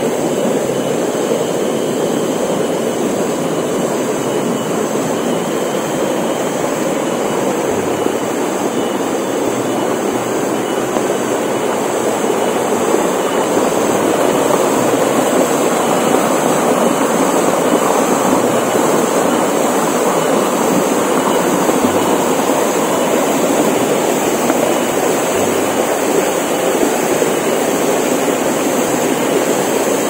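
Water rushing and splashing over rocks in a small stream cascade: a steady rush without pauses.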